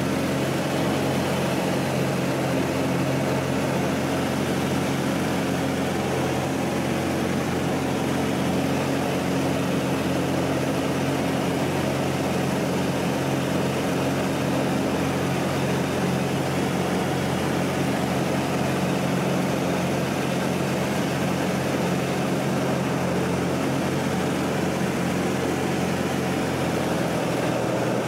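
Propeller engine of a two-seat Pitts aerobatic biplane running steadily in cruise, with propeller and air rush, heard from inside the cockpit. The drone holds an even pitch and level throughout.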